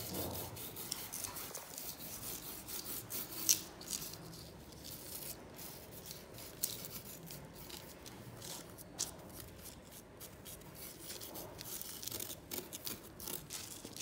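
Fingertips rubbing and pressing coloured sand onto a sticky sand-art sheet: a gritty scratching full of small crackles, with one sharper click about three and a half seconds in.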